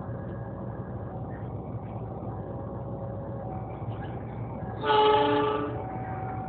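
Diesel locomotive approaching with a steady engine hum, then sounding one horn blast, about a second long, roughly five seconds in.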